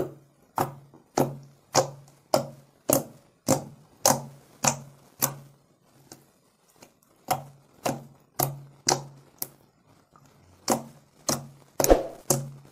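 Fingertips pressing and poking into a soft slime made of Fevicol glue and toothpaste, each press giving a short sticky squelch or pop against the wooden tabletop. The presses come a little under two a second, with a short pause about halfway through.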